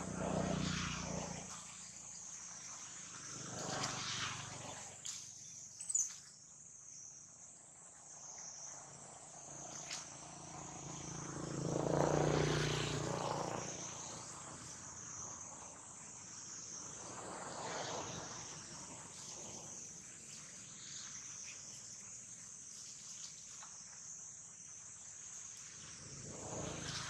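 Steady high-pitched drone of insects, with a rushing noise that swells and fades several times, loudest about twelve seconds in, and a brief sharp sound about six seconds in.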